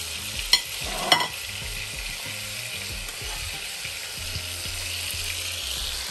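Burger patties sizzling in oil in a frying pan, a steady hiss. Near the start come two sharp clinks, about half a second apart, of the knife and pan against ceramic plates as buns are slid off.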